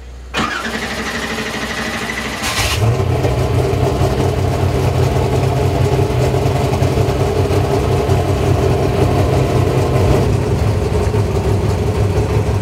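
Off-road race truck engine being started: a high whine for about two seconds, then the engine catches and runs steadily at idle.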